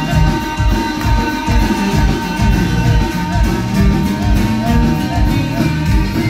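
A live band playing dance music with a steady beat and sustained held notes, loud through the PA speakers in a hall.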